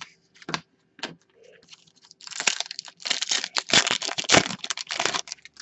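Trading cards and their foil pack wrapper being handled: a few light clicks, then about three seconds of dense crinkling and rustling.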